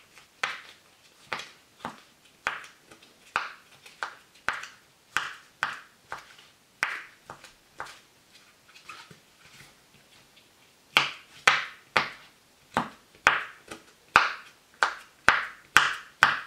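Bubbles of a homemade honeycomb-shaped pop-it fidget toy being pressed in with the fingers, one after another: a string of single pops, about one or two a second. About two thirds of the way through they come louder and faster.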